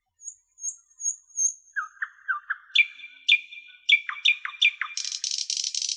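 Songbirds singing: a few short high chirps, then a run of repeated down-slurred notes at two pitches overlapping, building into a fast dense trill about five seconds in.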